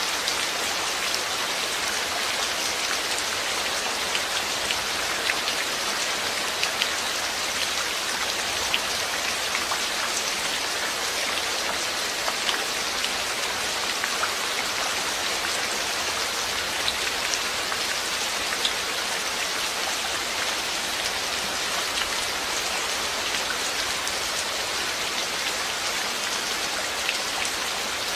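Steady rain falling, an even hiss with many small drops pattering on a surface.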